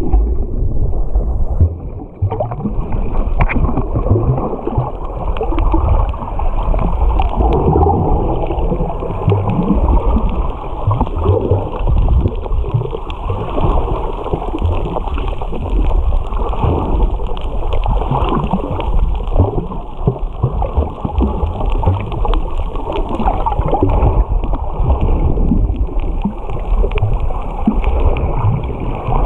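Muffled underwater sloshing and bubbling from a camera held below the surface, with swimmers' kicks churning the water.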